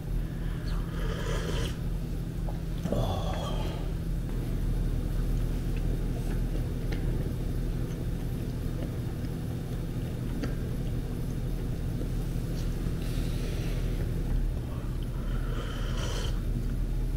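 Steady low room hum, with a few short slurps and mouth sounds of clear soup being sipped from a bowl, about a second in, again around three seconds, and twice near the end.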